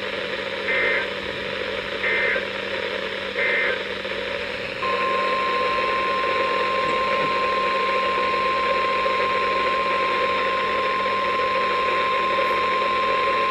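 NOAA Weather Radio Emergency Alert System activation received over a hissing radio channel. Three short bursts of digital SAME header data come about a second and a half apart. About five seconds in, the steady single-pitched weather-radio warning alarm tone starts and holds for about nine seconds, announcing a new warning.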